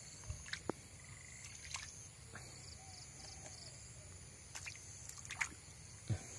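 Faint drips and small splashes of water in a plastic basin as beetles are picked out. Behind them is a steady high insect chorus, and a few small clicks rise above it near the end.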